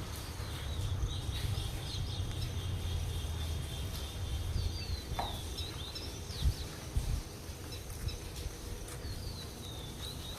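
Outdoor ambience: scattered short bird chirps over a steady low rumble, with a couple of faint knocks a little past the middle.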